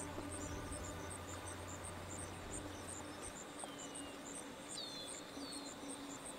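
Dusk ambience of crickets chirping steadily at about three chirps a second, with a few short falling bird calls. A low steady hum underneath stops about halfway through.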